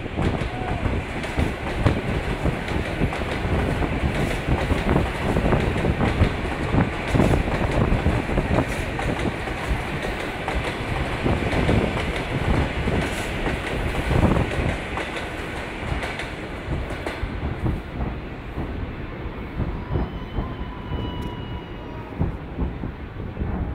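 Fireworks salute: a dense, continuous rumble of many bangs and crackles, fading gradually in the second half.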